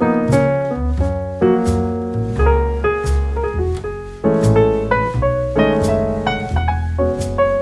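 Background music: a piano-led piece with a deep bass line and notes struck at a steady pace.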